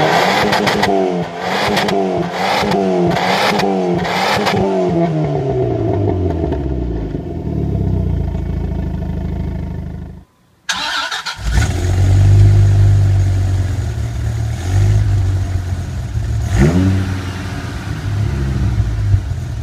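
A 1994 Volvo 940 turbo's four-cylinder engine with a custom exhaust revving up and down about four times in quick succession, then falling back to idle. After a brief cut, a 1999 Dodge Viper GTS's V10 on its stock exhaust idles with a deep, steady note and gives one short blip of the throttle near the end.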